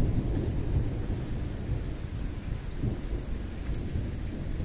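Rolling thunder, a deep low rumble slowly fading away, over steady rain.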